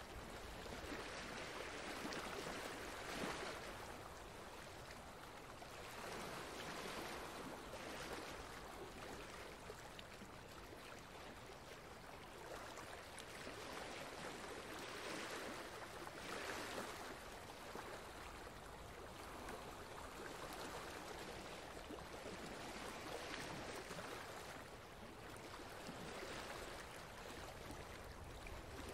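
Steady rushing water, like a flowing stream, swelling and easing every few seconds.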